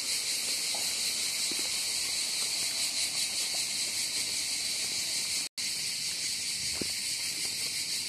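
Dense, steady chorus of insects chirring high-pitched, with faint footsteps on pavement beneath it. The sound cuts out for an instant about five and a half seconds in.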